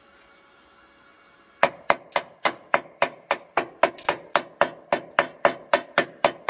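A welder's chipping hammer knocks slag off a fresh stick-weld bead on a steel beam. It makes a fast, even run of sharp metal strikes, about four a second, starting about a second and a half in.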